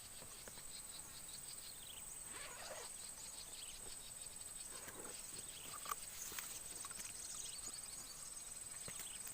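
Outdoor ambience of insects chirring steadily in a thin, high-pitched drone, with a few faint soft rustling noises.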